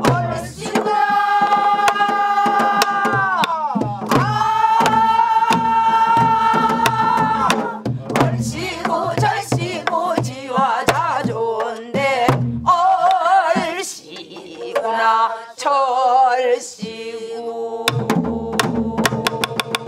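Several voices singing a Namdo folk song (namdo minyo) together, with long held notes that bend down and a wide, wavering vibrato, over the thuds of a buk barrel drum beaten with a stick.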